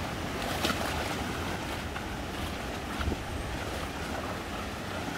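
Wading through a shallow, stony stream: legs splashing through the water with each step over a steady rush of flowing water, with slightly louder splashes about a second in and about three seconds in.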